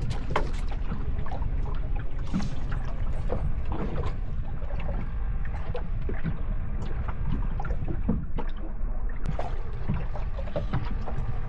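Water lapping and splashing against a small fishing boat's hull in irregular small slaps and taps, over a steady low rumble.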